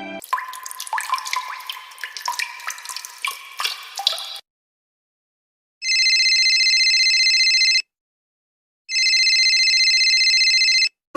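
Water dripping in quick, irregular plinks for about four seconds. After a short silence, a telephone rings twice, each ring a steady high trilling tone lasting about two seconds.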